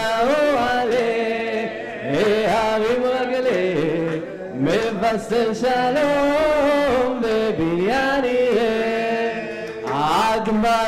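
Solo male cantor singing a Hebrew liturgical hymn (piyyut) to a Cochin Jewish melody, drawn out and ornamented with long wavering notes. A few scattered hand claps from the audience are heard over the singing.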